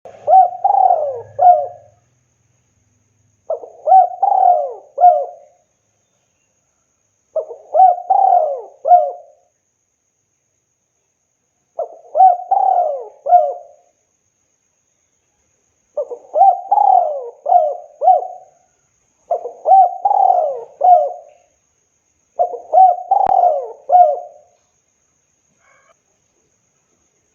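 Spotted dove (tekukur) cooing: seven phrases of three or four notes each, one about every four seconds, with silence between them.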